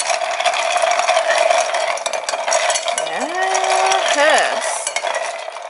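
Spoon stirring iced coffee in a glass, with a fast, continuous clinking of ice and spoon against the glass over a steady hum.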